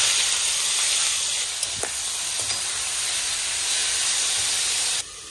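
Potatoes frying in hot oil in a pan, a steady loud sizzle that cuts off suddenly near the end.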